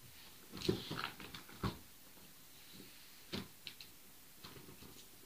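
Scattered short knocks and clicks of tools and wrenches, a few sharp ones in the first two seconds and lighter taps later, over faint room tone. The resident takes them for neighbours working upstairs.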